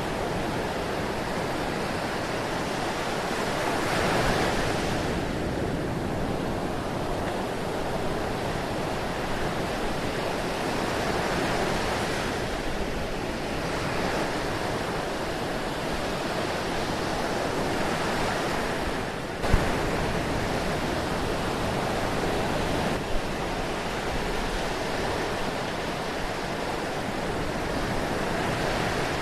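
Ocean surf washing steadily, with slow swells as waves break and ease about every seven seconds. A single sharp click sounds about two-thirds of the way through.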